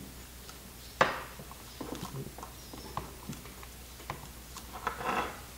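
Utility knife cutting away the inner plastic insulation at the end of a thick copper cable: scattered small clicks and scrapes, with one sharper click about a second in.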